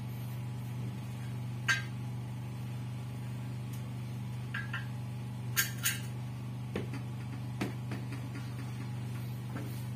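A few light clinks and taps of small hard objects being handled, the clearest about two seconds in and a pair a little past the middle, over a steady low hum.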